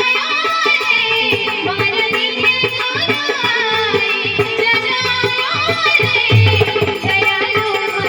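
Live Hindu devotional bhajan music: a melodic line and singing over a steady held tone, with tabla drumming keeping a continuous rhythm.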